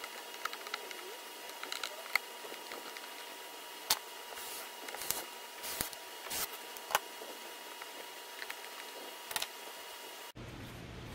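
Scattered light clicks and knocks of hands handling screws, a driver bit and the plastic shop-vac housing, with a few short scuffing noises, over a steady faint hiss and whine. Near the end the background cuts abruptly to a low steady hum.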